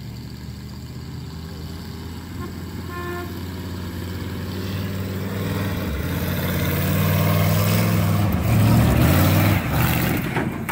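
Chevrolet 350 V8 of a 1972 Chevy pickup running as the truck drives across a field, growing steadily louder as it comes close and passes.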